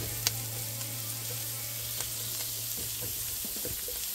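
Diced onion and chanterelle mushrooms sizzling in bacon grease in a nonstick skillet, with a wooden spatula tapping and scraping the pan now and then. A sharp tap comes a moment in.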